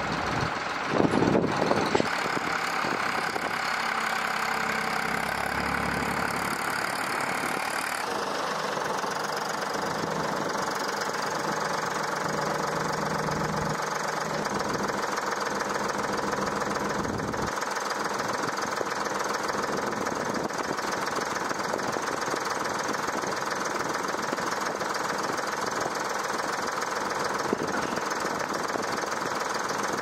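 A wheel loader's diesel engine running steadily, with a few louder clunks between one and two seconds in.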